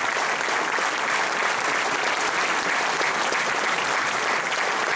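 An audience applauding steadily, the dense patter of many hands clapping at once.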